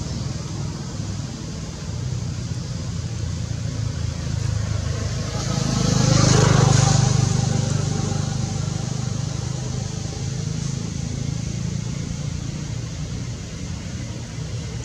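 Motor vehicle engine running steadily, with a vehicle passing by that grows loudest about six to seven seconds in and then fades away.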